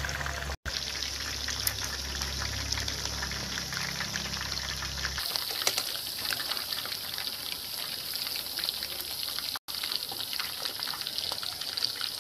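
Hot cooking oil sizzling and crackling steadily in a steel kadai, with a low hum underneath that stops about five seconds in.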